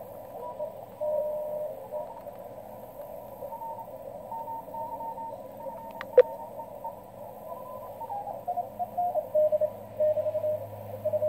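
Ham radio transceiver receiving the 20 m band in CW mode: hiss through a narrow filter, with faint Morse code signals beeping on and off as it is tuned down the band. About six seconds in there is a sharp double click, and from about eight seconds in one Morse signal keys more strongly.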